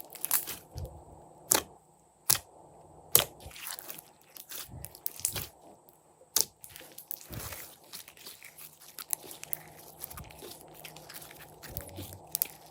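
Slime being pressed and squished by hand, giving irregular sharp clicking pops with soft crackling between them. The loudest snaps come about a second and a half, two, three and six seconds in.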